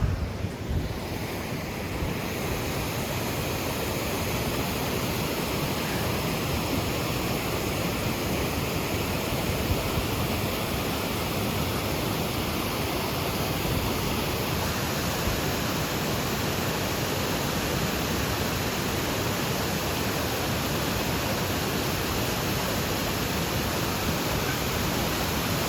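Steady rush of falling water from a waterfall, a constant even roar with no break.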